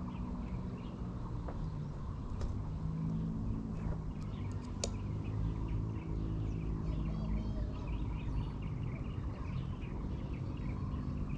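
Birds chirping and calling repeatedly over a steady low rumble, with a few sharp clicks in the middle.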